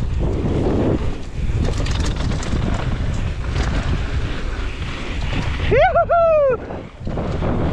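Wind rushing over the microphone and mountain bike tyres rolling over a dirt trail during a fast descent. About six seconds in, a rider lets out a short whoop whose pitch rises, wavers and falls.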